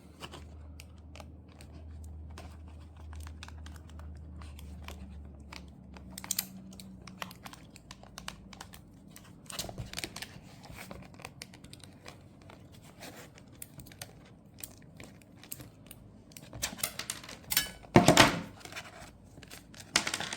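Packaging and small plastic parts being handled by hand: scattered light clicks, taps and crinkling as a product is unpacked, with a louder burst of handling noise about eighteen seconds in.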